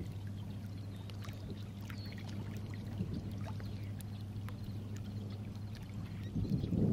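Small waves lapping and trickling against shoreline rocks, with many faint scattered ticks over a steady low hum. Wind buffets the microphone near the end.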